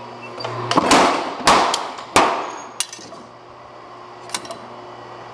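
Hand hammer striking a steel stamp and stock on the anvil: about five sharp, ringing metal blows in quick succession in the first couple of seconds, then two lighter strikes.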